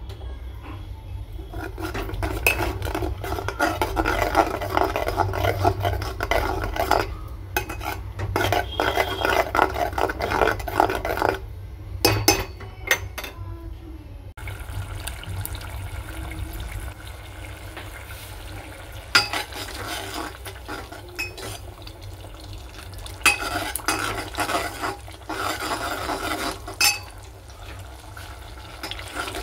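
Steel spoon stirring and scraping a thick frying onion-tomato masala in a metal pot, in stretches, with sharp clinks of the spoon against the pot.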